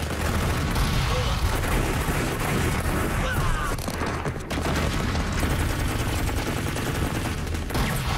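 Sustained gunfire from several guns, shots overlapping in a near-continuous volley.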